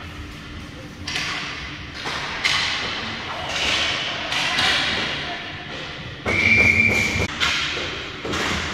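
Ice hockey play: a run of sharp thumps and clacks, about one a second, from pucks and sticks hitting the boards. A referee's whistle blows one steady, high blast for about a second, two-thirds of the way through.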